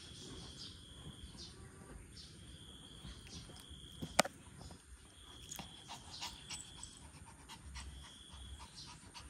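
A small dog panting, with faint scattered clicks and one sharp click about four seconds in.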